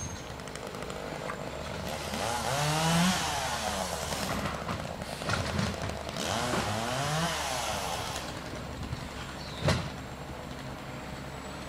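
Garbage truck's diesel engine idling, then revving up and falling back twice, each rev lasting about two seconds, as it drives the hydraulics to lift and empty a yard-waste cart. A single sharp bang comes near the end.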